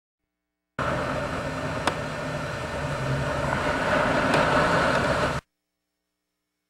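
Coast Guard 47-foot motor lifeboat running hard through surf: a steady diesel engine drone under a rush of water and spray. It starts and cuts off abruptly, with two sharp clicks, one about a second in and one near the end.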